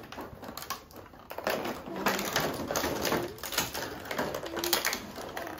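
Irregular plastic clicking and clattering: small plastic balls and toy pieces being handled and knocked about in a clear plastic packaging tray.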